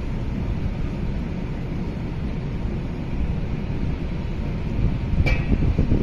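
Wind rumbling on the microphone, a steady low buffeting, with one sharp clink about five seconds in.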